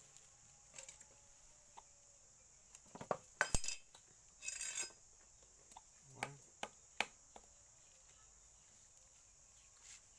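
A few scattered sharp knocks and clinks, loudest in a quick cluster about three and a half seconds in, with a short rustling burst just after and a few single knocks later. A steady high insect drone runs underneath.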